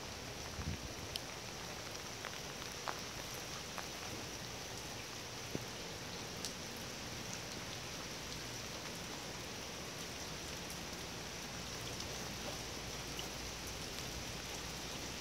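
Steady rain falling, with scattered faint ticks of single drops.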